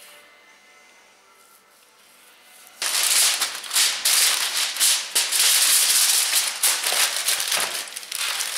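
Aluminium foil being crumpled and folded around a piece of meat: a loud, dense crinkling that starts suddenly about three seconds in, after a quiet start.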